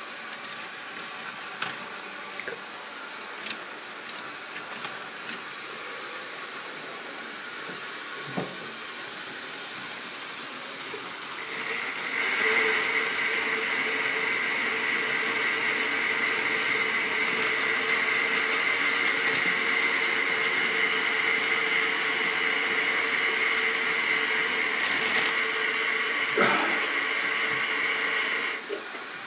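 A few light clicks of model railway wagons being handled on the track, then a model locomotive's small electric motor running with a steady whine and hiss as the tank wagons move slowly along. The whine starts about twelve seconds in, a single knock comes near the end, and it cuts off just before the end.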